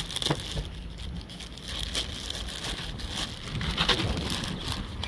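Light handling noises, scattered clicks and rustles, over wind rumbling on the microphone.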